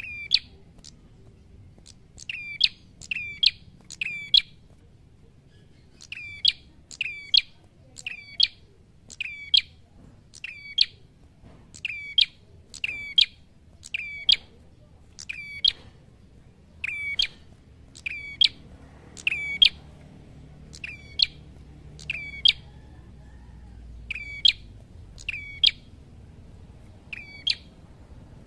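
Ashy tailorbird singing a long run of sharp whistled notes, each a quick downward sweep, repeated about once a second with a couple of short pauses.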